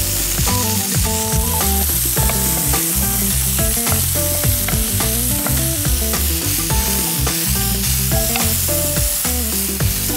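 Sliced bell peppers and onions sizzling in a hot frying pan as they are stirred and tossed, with background music playing underneath.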